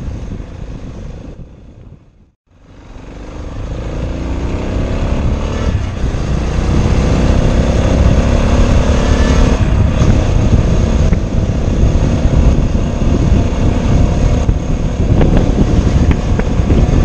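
Motorcycle engine accelerating through the gears while riding, its pitch rising and dropping back at gear changes about six and nine and a half seconds in, under heavy wind noise. The sound cuts out briefly about two seconds in.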